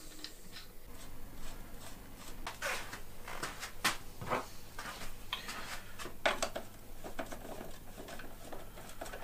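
Scattered small metal clicks and taps as a bolt and hex key are handled and fitted into a mountain bike's rear-suspension rocker link, the sharpest click about four seconds in.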